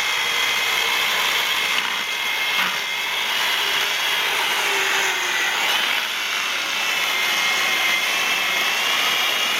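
Vintage Milwaukee 6210 electric chainsaw running steadily, its chain cutting through a log, with a high motor whine that sounds like a drill and wavers slightly in pitch under load.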